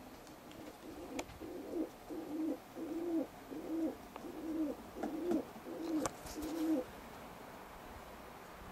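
A pigeon cooing: a run of short, low coos, about two a second, that stops about a second and a half before the end.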